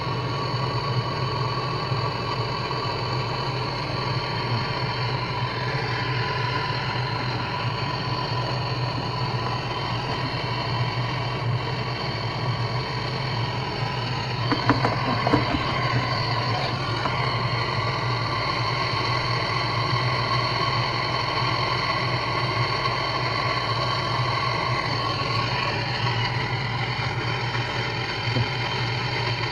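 Gas blowtorch burning steadily, heating a seized part of a washing machine to loosen it. A few light metal taps come about halfway through.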